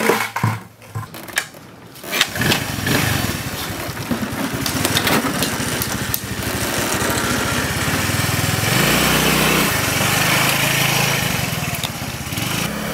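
A few knocks, then a Korean motor scooter's small engine starts about two seconds in and runs with a rapid, even putter. Near nine seconds it revs up higher as the scooter pulls away.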